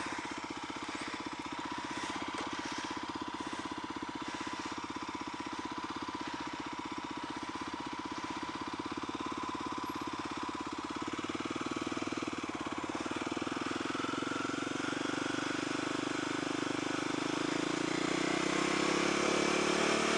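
Kawasaki supermoto motorcycle engine idling steadily, its speed creeping up slowly over the last several seconds.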